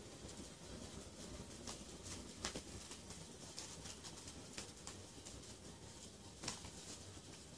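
Faint, scattered soft taps and rustles of kittens scrabbling and play-fighting on bedding, over low steady room noise; the sharpest taps come about two and a half and six and a half seconds in.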